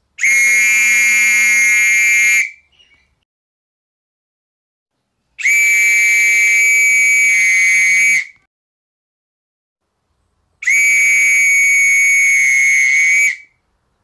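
A whistle blown in three long, steady blasts of about two and a half seconds each, a few seconds apart, each holding one high pitch without a trill.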